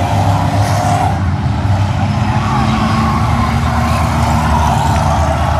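Engines of a field of stock cars racing on a short oval track, several running at once, loud and steady, with pitch wavering as cars pass.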